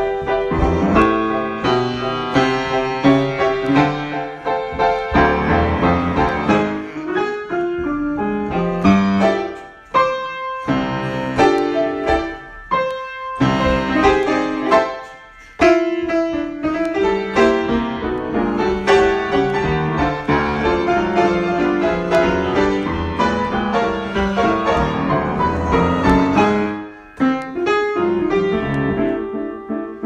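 Grand piano played solo, a free improvisation of dense chords and running notes, with a few short pauses between phrases.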